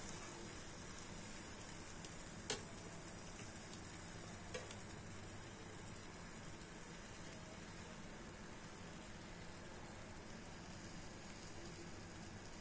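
Faint, steady sizzling of a cheese-topped pizza waffle frying in a wok. A sharp metal clack of a utensil against the pan comes about two and a half seconds in, and a lighter one about two seconds later.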